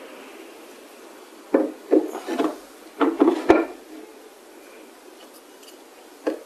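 Wooden pieces knocking and rubbing together as they are handled, in two clusters of sharp knocks: one about a second and a half in, the other about three seconds in.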